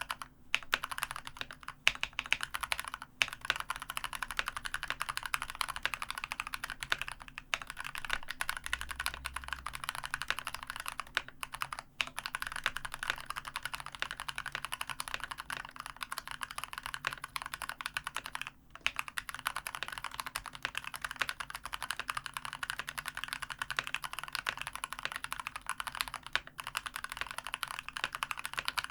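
Fast continuous typing on a COX CK108 mechanical keyboard with spray-lubricated Gateron Brown tactile switches and sponge dampening, a dense stream of key presses with a few brief pauses.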